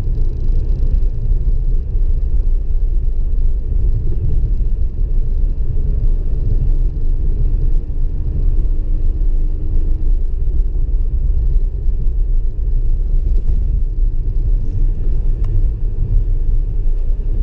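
Steady low rumble of a car on the move, heard from inside the cabin: engine and tyre noise.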